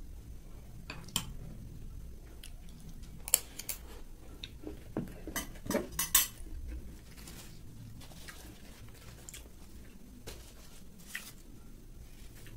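Metal spoons clinking and scraping against dishes in a string of sharp clinks, busiest a few seconds in, with a couple more near the end.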